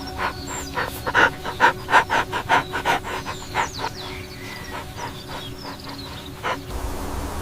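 An animal panting, quick rhythmic breaths several a second, stopping shortly before the end.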